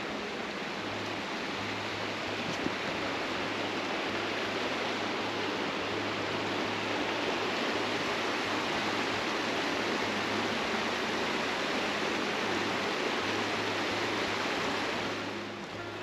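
Creek water running steadily, an even rushing hiss that falls away near the end.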